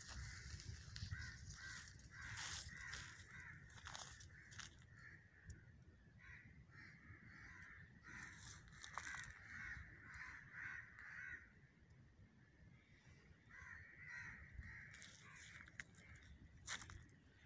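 Crows cawing faintly, in bouts of repeated harsh calls, with a few sharp clicks in between.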